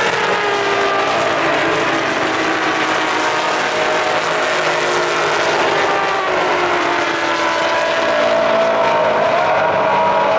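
Engines of a pack of sports race cars running together as the field goes by: a steady, loud drone of many engine notes, sliding down and back up in pitch against each other.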